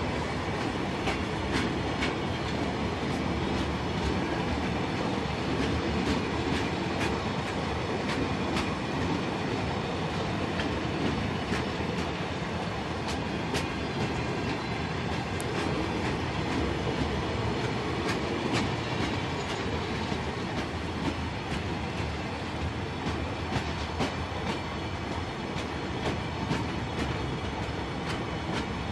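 Open freight wagons rolling slowly past close by: a steady rumble of steel wheels on the rails, with frequent irregular clicks and clanks as the wheels cross rail joints.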